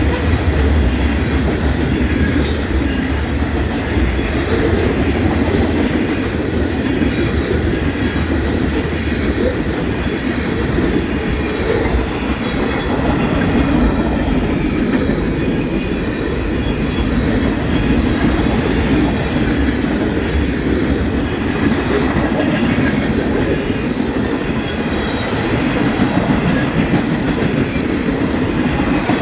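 Freight train cars rolling past close by: a steady, loud rumble of wheels on rail with clickety-clack over the rail joints.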